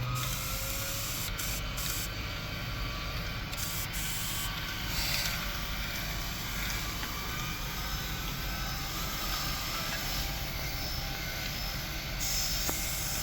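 Small electric motors drive a tabletop model mine's conveyor belts and screen while birdseed pours and rattles through its chutes. Together they make a steady mechanical hum with a continuous hiss of grain.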